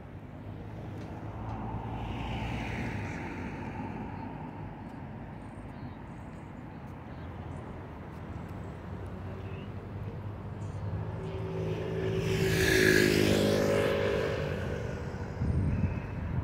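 Road vehicles passing by. A quieter one goes by about two seconds in, and a louder one passes close about two-thirds of the way through, rising and then fading away.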